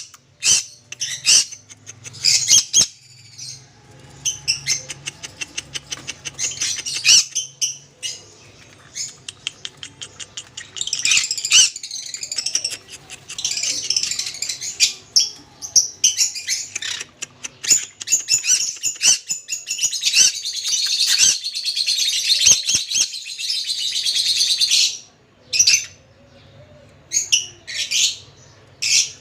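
Pet parrot chirping and chattering: short high chirps and quick trills, with a long, unbroken stretch of chatter through the middle.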